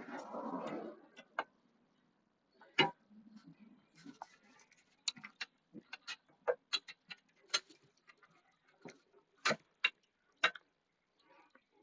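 Scattered, irregular light clicks and taps of small metal parts as a nut is worked onto an exhaust mounting bolt by hand, with a brief rustle at the start.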